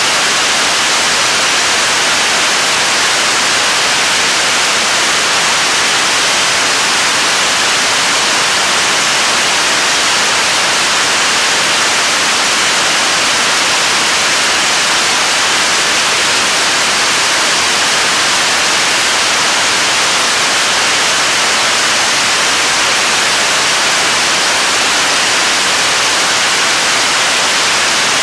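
KARI's 7-tonne-class kerosene and liquid-oxygen rocket engine, the third-stage engine of the Korean Launch Vehicle, firing steadily in a long-duration hot-fire test. The exhaust makes a loud, unbroken hiss, mostly high-pitched with little low rumble, holding an even level throughout.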